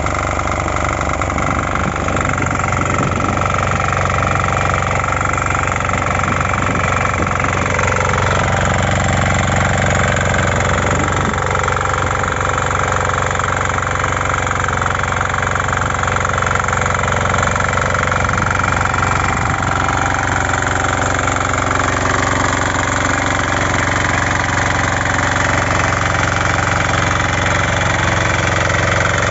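Shrachi 6D3 6 HP diesel power weeder engine running steadily while the machine tills between crop rows.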